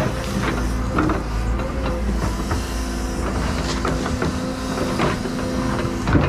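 Tracked excavator's diesel engine running steadily with a held hydraulic whine, while the bucket scrapes and knocks in the dirt several times.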